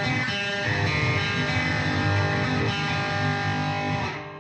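Electric guitar played through fuzz distortion, ringing chords between sung lines, fading briefly near the end.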